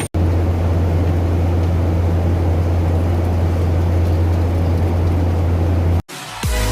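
Loud, steady low drone of a passenger jet's engines as heard inside the cabin. It cuts off abruptly about six seconds in, and music begins just after.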